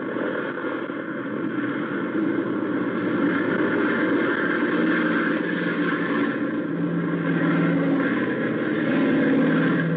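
Light single-engine plane's engine at full power for a takeoff, a steady drone that builds over the first few seconds and stays loud. It is a radio-drama sound effect on an old, narrow-band recording.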